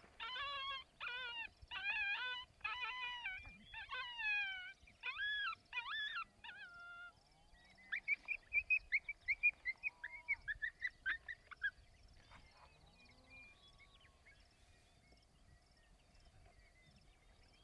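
Coyote howling and yipping: a string of high, wavering cries that bend up and down. About eight seconds in they give way to a quick run of sharp yips, then fade.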